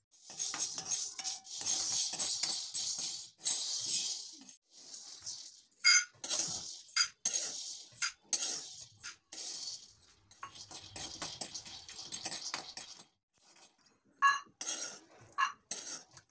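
Dry roasted chana and peanuts tipped from a steel ladle into a steel bowl, in several pours. Each pour is a rattling patter of hard grains, with clinks of metal on metal; near the end there are a few separate clinks.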